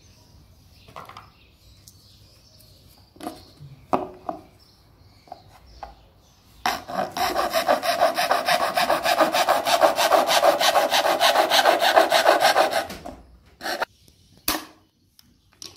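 A bare hacksaw blade, held in the hand, sawing through the wall of a white PVC box in rapid, even back-and-forth strokes for about six seconds. Before it come scattered light knocks and clicks of handling, and a few sharp knocks follow near the end.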